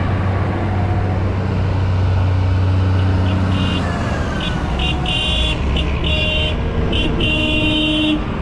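Tractor engine running steadily under load, its low note shifting about halfway through. From about three seconds in, high-pitched horn toots sound in short repeated beeps.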